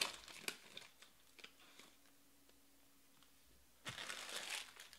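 Plastic wrapper of a trading-card pack crinkling and tearing as it is opened by hand: scattered crackles in the first second, a quiet stretch, then another short burst of crinkling near the end.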